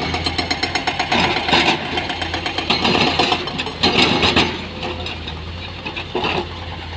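Heavy diesel machinery running steadily, with irregular clattering knocks of stone being loaded. The knocking is busiest for the first four and a half seconds, then eases off while the engine keeps running.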